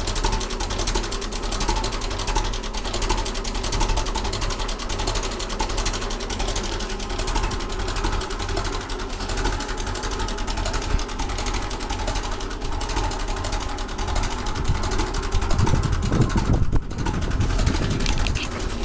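Ferguson TE20 tractor engine idling steadily, heard close up. There is a brief louder low rumble near the end.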